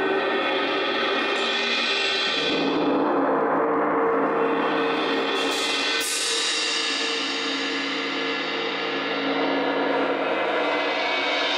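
Rolled metal percussion, gong- and cymbal-like, ringing in a dense sustained wash that swells and fades in waves. There is a sharper, brighter stroke about six seconds in, then a long decay and a new swell near the end.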